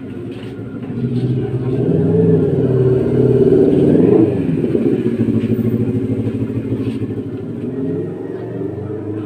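A motor vehicle's engine running, growing louder to a peak about four seconds in and then easing off.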